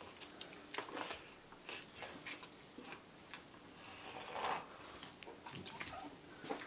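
Quiet room with faint scattered clicks and rustles, and one slightly louder brief noise about four and a half seconds in.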